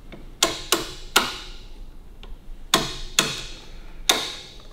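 Six sharp metallic clinks, each ringing briefly, from metal parts and hand tools being worked at the front end of a vintage Harley-Davidson motorcycle. Three come close together in the first second or so, and three more follow a couple of seconds later.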